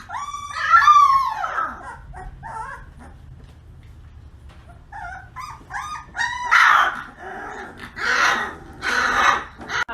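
A dog whining and yipping in high, gliding cries, then several louder, harsher bark-like bursts in the second half.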